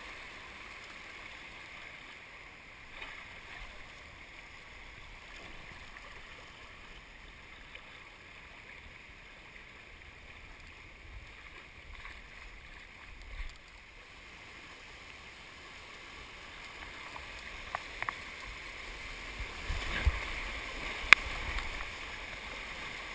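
Rushing water of a rocky mountain creek heard from a tube drifting downstream: a steady hiss of flowing water that grows louder toward the end as the tube enters whitewater rapids. Several sharp knocks and splashes come in the last few seconds.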